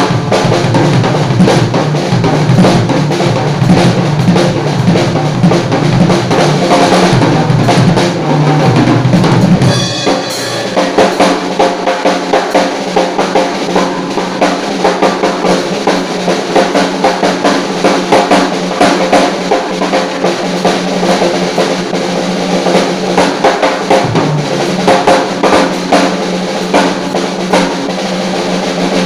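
Acoustic drum kit played in a practice exercise: bass drum strokes mixed with hand strokes on snare and toms in repeating kick-right-left sticking patterns. About ten seconds in, the low boom thins out and the hits come as clearer, evenly spaced strokes.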